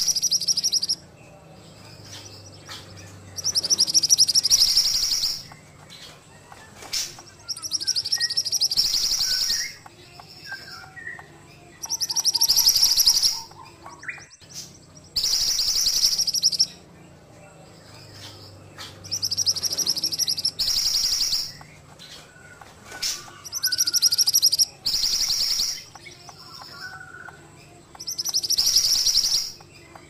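Caged mantenan (a minivet) singing: a rapid, high trilled phrase lasting a second or two, repeated about every four seconds, with softer chips in between. A steady low hum runs underneath.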